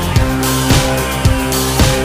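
Background rock music with guitar and a steady drum beat, a little under two beats a second.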